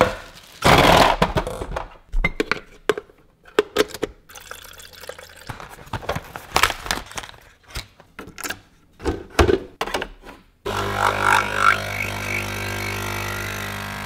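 Plastic clicks and knocks from handling a Nespresso capsule machine, loading a capsule and closing the lever; about ten seconds in, a steady hum starts suddenly as the machine's pump pushes water through the capsule to brew.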